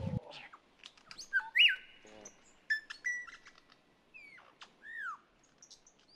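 Wild birds calling in quick succession: whistled notes, chirps and sharp rising and falling sweeps, several overlapping, the loudest a strong whistle about a second and a half in. A brief low thump at the very start.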